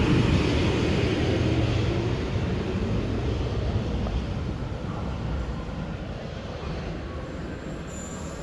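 Helsinki Metro M300 train moving out of the station, its rumble fading steadily as it pulls away.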